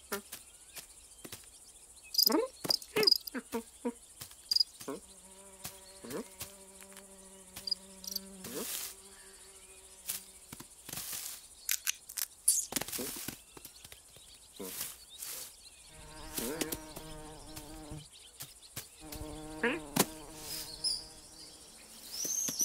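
Cartoon sound effect of a flying insect buzzing, heard in three long stretches: one about five seconds in and two near the end. Underneath is a steady high chirring of crickets, with short clicks and chirps scattered through.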